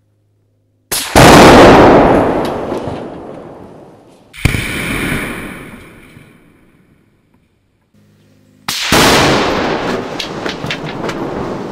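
Huge tannerite explosion (about 200 lb) set off by a rifle shot, the rifle's crack coming a split second before the first blast. The blast is heard three times in a row: each is a sudden boom with a long rolling echo that dies away over two to four seconds.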